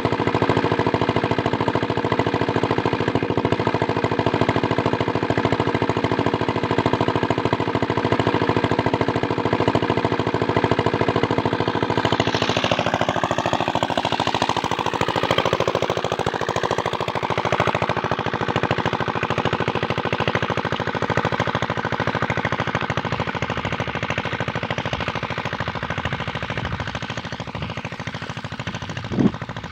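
Small Chinese power-tiller-type diesel engine running steadily, driving an irrigation water pump, with rapid, even firing pulses. It grows gradually fainter in the second half. A single brief knock near the end.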